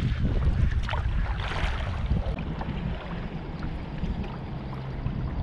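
Kayak paddling on a river, with wind rumbling on the microphone and splashes of paddle strokes about a second in and again shortly after. A low steady hum comes in near the end.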